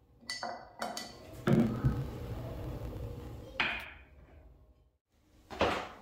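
Toothbrushes dropped into a ceramic toothbrush cup: a few light clicks and clinks, then a louder knock. A single short thump comes near the end.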